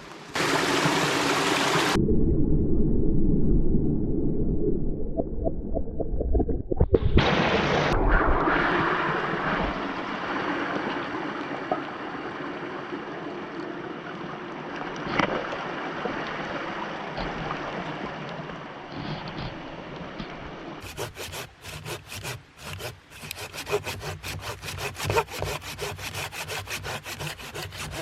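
A hand saw cutting through wood in quick, even back-and-forth strokes during the last several seconds, after a stretch of steady rushing noise.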